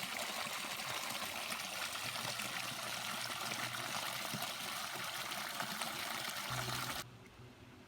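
Water running and trickling steadily; it cuts off abruptly about seven seconds in.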